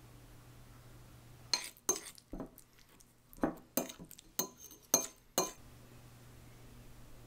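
Metal fork clinking against a ceramic bowl while mashing steamed pumpkin into cream. There are about eight sharp clinks, starting about a second and a half in and stopping about two seconds before the end.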